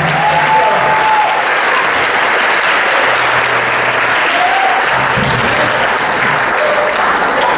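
Audience applauding steadily at the end of a song, with band members clapping along.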